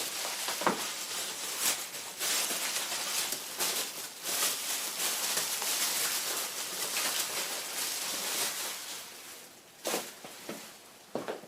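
Sky-Watcher EQM-35 mount's declination drive running, a steady hissing whir that fades out about nine seconds in, followed by a few sharp clicks near the end.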